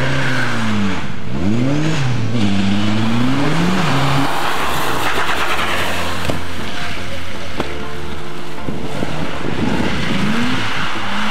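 Rally car engines at full effort: a Ford Escort Mk2's engine revs hard, its pitch sweeping up and down several times through the first four seconds as the driver lifts, shifts and gets back on the throttle. Then a BMW E30 rally car passes in a dense rush of engine and tyre noise, and an engine note climbs again near the end.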